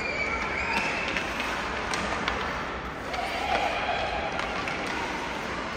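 Youth ice hockey game sounds: a few held shouts from players or spectators over the rink's steady background noise, with scattered sharp clicks and knocks of sticks and puck.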